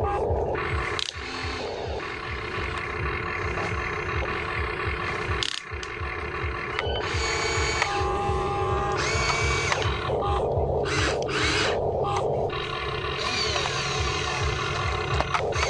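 Electric motors and gears of a Huina RC excavator whirring as the arm and bucket work. A fast low rattle runs throughout, and whines come and go as each motor starts and stops.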